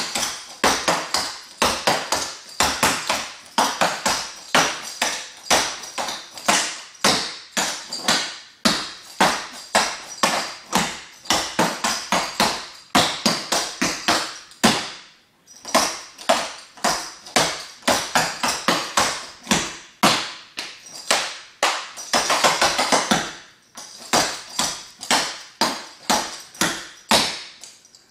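Clogging shoe taps striking a hard tile floor in quick, rhythmic clicking steps, with two brief pauses, one about halfway through and one a few seconds later.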